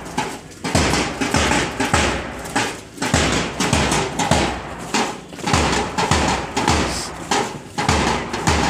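Marching bass drum beating a steady march time, about one beat a second, over a continuous rush of outdoor noise.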